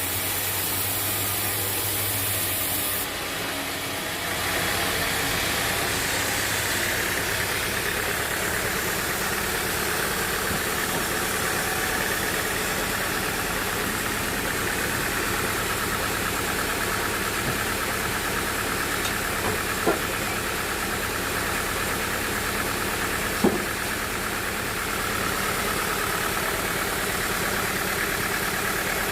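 Sawmill machinery running steadily, with three short sharp knocks, one about two-thirds of the way in, one a few seconds later and one near the end.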